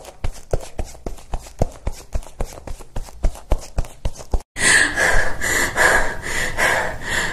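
Quick, regular footsteps, about four a second. After about four and a half seconds a louder pulsing hiss with a steady high tone takes over.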